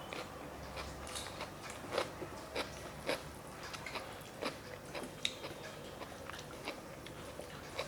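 A person eating a rice-and-curry meal close to the microphone: irregular small clicks and smacks of chewing and mouthfuls, with a few louder crunchy bites.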